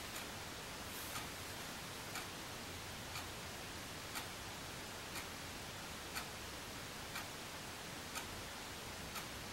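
A clock ticking about once a second over a faint hiss of room tone.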